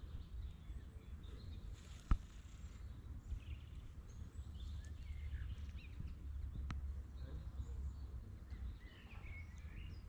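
Steady low wind rumble on the microphone with small birds chirping faintly, and a sharp click about two seconds in, with a fainter one later.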